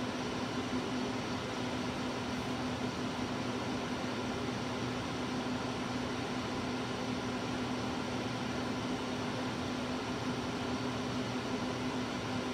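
Steady electrical hum and fan whir from a powered CNC machine control cabinet holding servo drives, with a low, even hum under a fan-like hiss.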